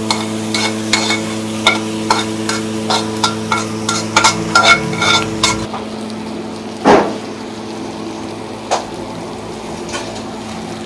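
Food frying in a pan while a metal spatula stirs it, clinking against the pan in quick strokes for the first five seconds or so, then two single knocks. A steady hum runs underneath.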